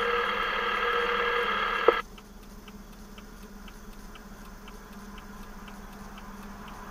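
Two-way radio hiss that cuts off with a click about two seconds in. After it comes a quiet, even ticking about twice a second.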